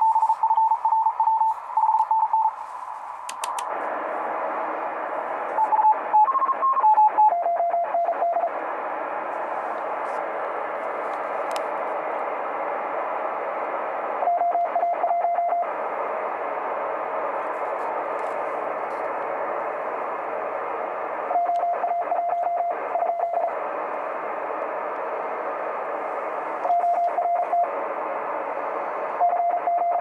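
Very fast Morse code (CW) from a Radio Shack DX-394 shortwave receiver tuned to the 40-metre amateur band: a single beeping tone keyed at high speed in several bursts over steady band hiss. The tone's pitch steps lower about seven seconds in, as the receiver's tuning shifts slightly.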